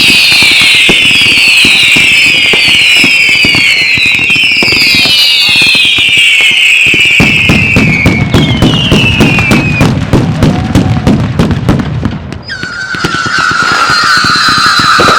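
Fireworks going off: several overlapping whistles, each falling in pitch, with a dense string of sharp cracks and bangs in the middle. Near the end a single lower whistle starts and holds, dipping slowly.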